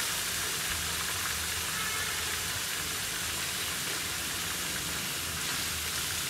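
Crab pieces coated in tapioca starch frying in hot oil in a pan, a steady sizzle.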